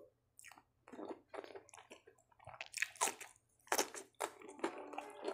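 A person biting into and chewing a raw cucumber slice, with wet, irregular crunches and mouth clicks.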